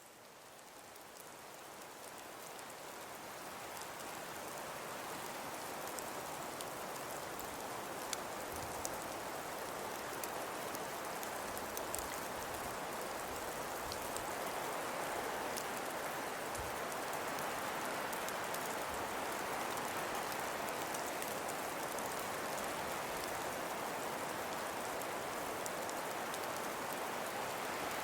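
Snowfall sound effect: a steady soft hiss like light rain, with scattered faint ticks, fading in over the first few seconds.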